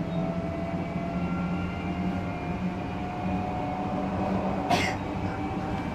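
Odakyu 3000 series electric train running, heard from inside the car: its Mitsubishi IGBT VVVF inverter and fully enclosed MB-5123 traction motors give a steady whine whose tones slowly rise in pitch, over the hum of wheels on rail. About three-quarters of the way through there is one brief sharp clack.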